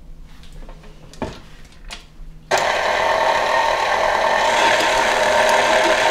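KitchenAid Artisan tilt-head stand mixer switched on about two and a half seconds in, its motor running steadily as the flat beater mixes flour into creamed butter and sugar for a shortbread crust. A few light knocks come before it starts.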